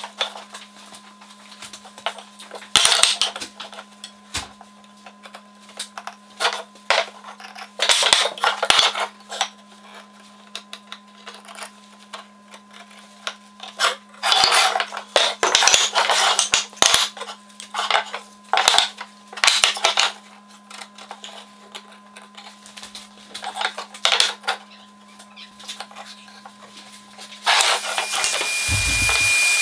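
Wooden boards knocking and sliding on a workbench as they are laid out and marked with a pencil, in scattered clusters of short clatters. Near the end a power tool starts running with a steady high whine.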